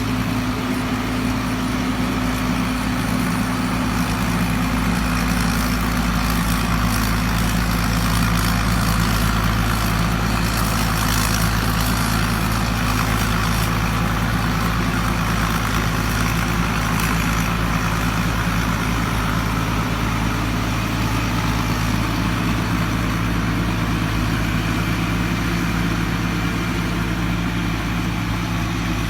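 A Thai Charoen Kan Chang combine harvester running steadily: a low engine drone with a rushing mechanical noise over it.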